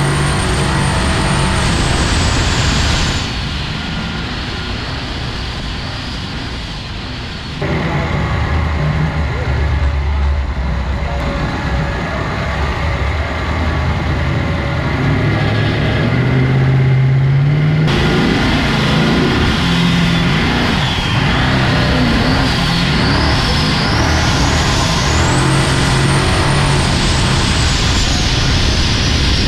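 Twin-turbocharged Ford V8 of a jet boat running, cut together from several shots: a high turbo whine climbs and falls near the start, the engine runs lower and steadier in the middle, then it builds again with the turbo whine rising and falling near the end.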